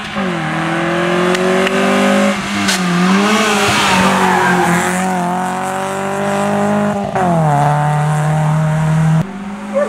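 A small rally car of the up-to-1400 cc class runs hard on a tarmac stage. Its engine revs rise and drop through gear changes, with a spell of tyre noise as it swings through the bend. About seven seconds in the sound cuts to another pass, where the engine revs high and then eases off.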